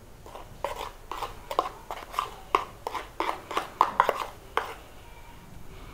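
A spoon and a plastic box knocking as flour is tapped out onto a steel plate: a quick run of about a dozen sharp taps, roughly three a second, stopping about two-thirds of the way through.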